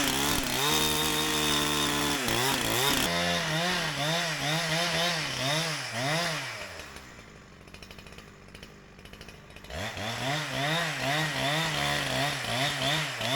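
Holzfforma 372xp two-stroke chainsaw running at full throttle for about three seconds. It is then revved up and down repeatedly, about twice a second, before settling to a low idle. Around ten seconds in it is revved up and down again. The saw is being run rich during break-in.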